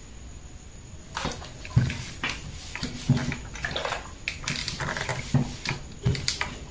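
Cotton print fabric being handled on an ironing table: rustling and flapping as the pieces are laid flat and smoothed, with a few soft knocks.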